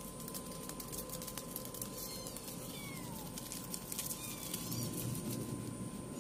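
Kitten mewing: a few short, high-pitched mews that fall in pitch, about two, three and four and a half seconds in, over a low rustling background.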